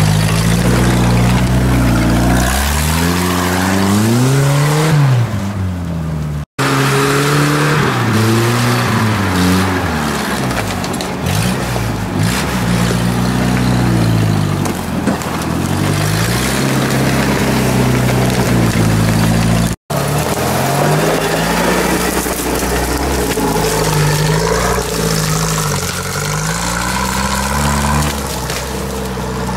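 Off-road 4x4 engines revving up and down again and again as the vehicles crawl through mud and snow, the pitch rising and falling every second or two. The sound cuts out briefly twice.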